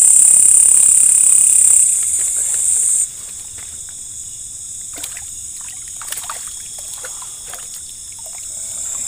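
A steady, high-pitched insect chorus, like crickets, cuts off sharply about three seconds in. After that come scattered splashes and drips of water as a hooked baung catfish is pulled up on the line and thrashes at the surface.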